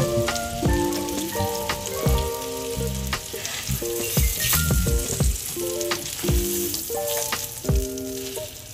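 Food sizzling as it fries in a pan, a steady hiss, under background music with plucked notes, a bass line and a regular beat.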